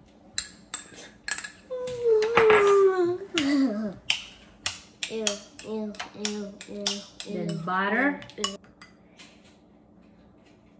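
A metal spoon clinking and scraping against white ceramic bowls as rice is scooped from one bowl into the other, with many short sharp clicks. A person's voice makes wordless sounds in between: a long falling sound about two seconds in, then a run of short, evenly spaced notes.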